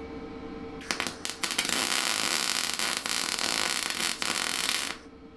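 Wire-feed welder arc crackling as a tack weld is laid on the frame tubing: a couple of short starts about a second in, then a steady weld of about three seconds that cuts off near the end.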